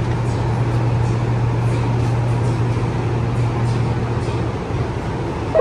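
Steady low hum of a metro carriage standing at a platform with its doors open, dipping briefly near the end.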